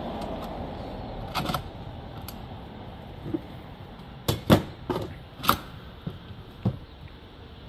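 Irregular sharp clicks and knocks from strimmer parts being handled and fitted together during assembly, about ten in all, with the loudest cluster a little past the middle.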